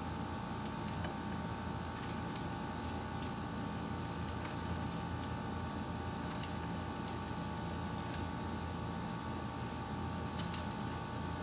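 Steady machine hum with a fixed whine, unchanging throughout, with scattered light clicks over it.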